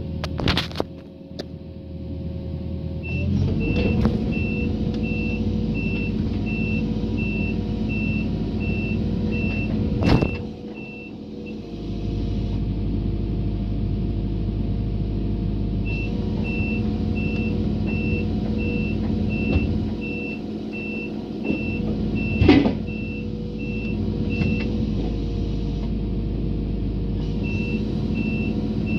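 Excavator's diesel engine running steadily, with its travel alarm beeping about twice a second in runs that stop and start again as the machine moves and halts. A few sharp metal clanks come through, the loudest about ten seconds and twenty-two seconds in.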